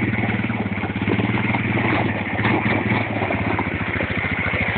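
Arctic Cat sport ATV engine idling with a steady, even beat.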